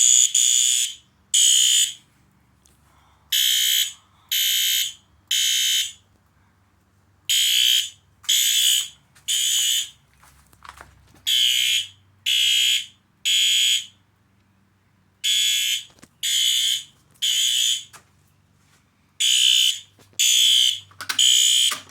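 System Sensor HR fire alarm horn, taped over, sounding in the temporal-three evacuation pattern: three loud half-second blasts about a second apart, then a pause of about two seconds, repeating.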